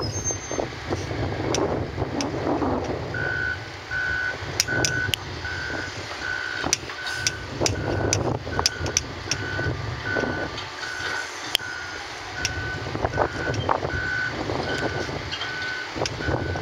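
Backup alarm on heavy construction equipment beeping steadily, about one and a half beeps a second, starting about three seconds in. Under it, excavator engines run with a low rumble, and there are scattered sharp clanks.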